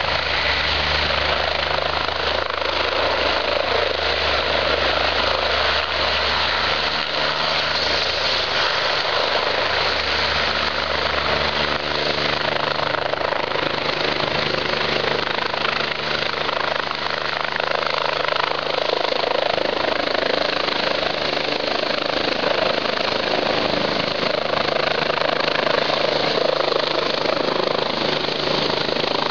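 Eurocopter EC-145 twin-turbine helicopter taking off: loud, steady rotor and turbine noise as it lifts off the pad, hovers and climbs.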